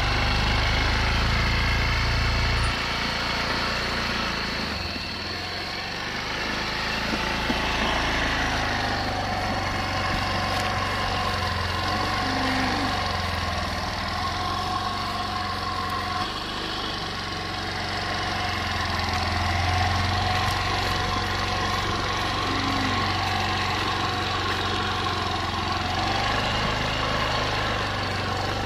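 Honda Vision scooter's small engine running steadily as the scooter rides along, with a heavier low rumble for the first few seconds.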